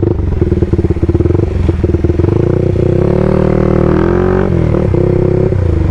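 Motorcycle engine running as the bike rides along, its exhaust pulses steady. The revs climb from about two seconds in, drop back around four and a half seconds, then hold steady.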